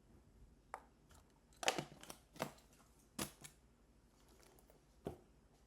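Handling noises: a handful of irregular knocks and rustles, the loudest about two seconds in.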